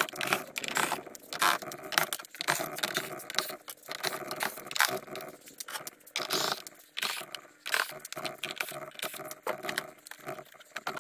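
Cordless drill backing screws out of a plastic HVAC heater box in short runs, amid a busy, irregular clatter of loose screws and hard plastic being handled.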